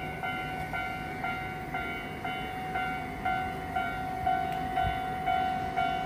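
Japanese railway level-crossing warning bell ringing steadily, about two dings a second, while the crossing's warning lights flash: a train is approaching.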